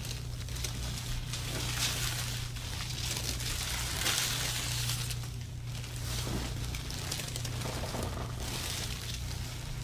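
Soft rubbing and rustling that swells and fades every second or two, over a steady low hum.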